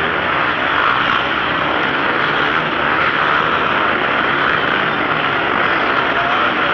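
Engines of several motocross bikes running hard as the pack rides through a dirt corner close by, blending into one loud, continuous engine noise.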